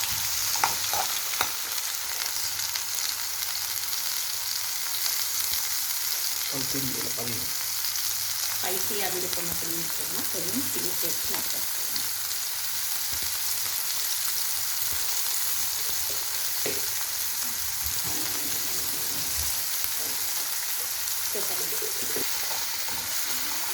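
Chopped vegetables (capsicum and green chillies) sizzling steadily as they fry in a little hot oil in a pan, stirred now and then.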